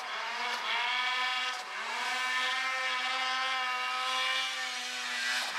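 Mountain snowmobile engine revving hard while the sled carves through deep powder. The pitch climbs at the start, dips briefly about a second and a half in, then rises again and holds high before falling off near the end.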